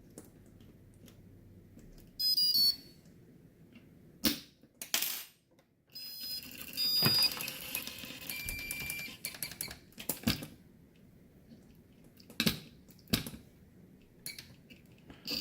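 Electronic beep tones from an antweight combat robot's brushless weapon motor and ESC: a quick run of high beeps about two seconds in and a longer run of tones from about six and a half to nine seconds, with several sharp clicks between them.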